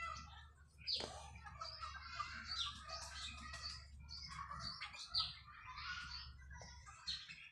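Small birds chirping and twittering, with many short calls and several sharp, quick downward-sweeping notes, over a low steady hum.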